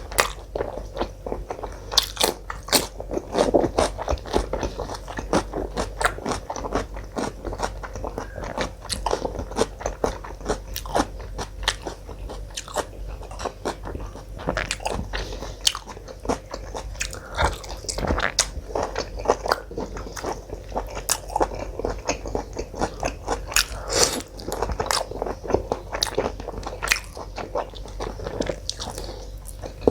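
Close-miked chewing and wet mouth sounds of a person eating a meal of mutton curry and paratha: irregular smacks and clicks, several a second, with some louder bites.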